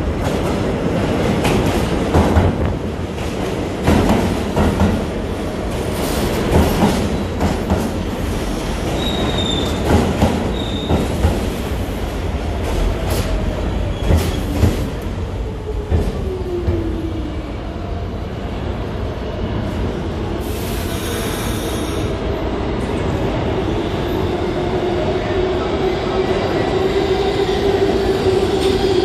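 R46 subway train pulling into the station and braking to a stop: wheels rumble and click over the rail joints, with short high wheel squeals and a falling whine as it slows. A short hiss comes about three-quarters through, then a steady hum as the train stands at the platform.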